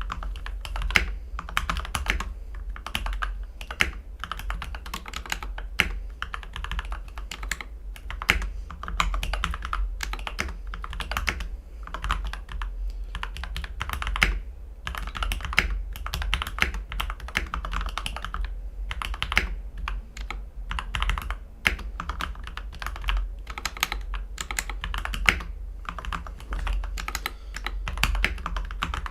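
Continuous typing on a mechanical keyboard with Gateron Ink V2 Black linear switches, lubed with GPL 205 and filmed, on an aluminium plate with a three-layer tape mod and PE foam mod. The keystrokes come in a dense, fast run, with a few louder strokes standing out, over a steady low hum.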